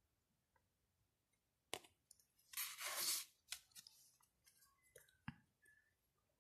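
Glossy photocards being handled: a few small clicks and taps of the cards, and about two and a half seconds in a short rustling slide as a card is drawn off the stack.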